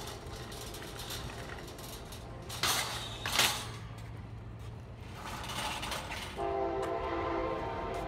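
A train horn sounds a steady blast of several tones together, starting about six and a half seconds in. Earlier, about two and a half and three and a half seconds in, there are two loud scuffs of handling noise on the microphone.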